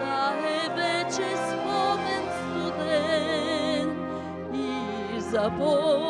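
A woman singing a sustained melody in an operatic style with wide vibrato, over a sustained instrumental accompaniment.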